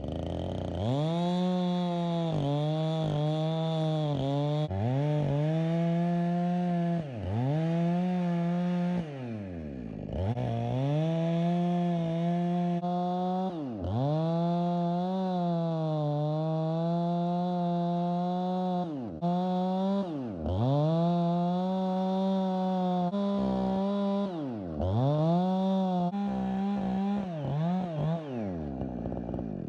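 Muffler-modded Husqvarna 455 Rancher two-stroke chainsaw cutting a stump down flush with the ground. The engine pitch drops again and again as the chain bogs down in the cut, then climbs back each time. The chain is running into the dirt at ground level. The engine winds down near the end.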